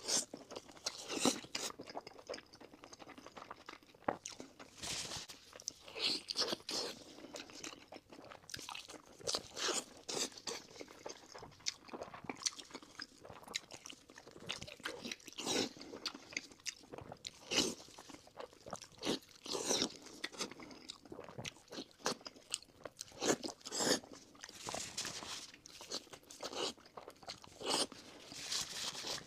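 Close-miked eating: crunchy bites and chewing of fried pork with noodles, in irregular crackling bursts every second or two.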